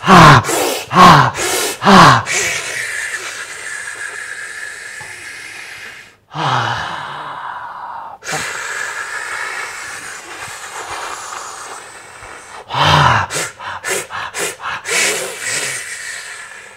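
A man doing a breathwork demonstration through his mouth: a few short, forceful breaths voiced with a falling pitch, then two long hissing breaths, then another run of short forceful breaths near the end.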